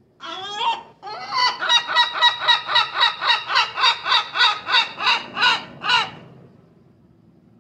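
A gull calling loudly: one rising note, a short pause, then a long run of rapid repeated cries at about four a second that stops suddenly.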